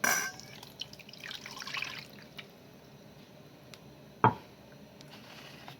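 Lemon juice poured out of a glass, a short splashing pour about a second in. There is a sharp clatter at the start and a single hard knock a little past the middle.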